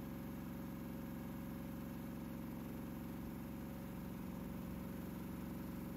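An engine idling steadily with an even low hum, unchanging in pitch and level.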